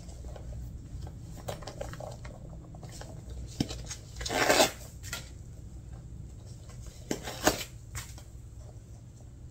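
A small leather handbag being handled, with rustling paper and light clicks of its metal clasps and chain. There are two short, louder rustles, one near the middle and one about three quarters in.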